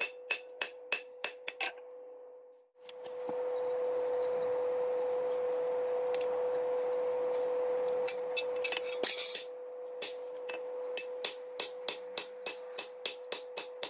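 Regular hammer blows on metal, about three a second with a ringing note, stop about two seconds in. A steady rushing noise follows for several seconds, then a brief hiss, and the hammering starts again near the end. A steady hum runs underneath.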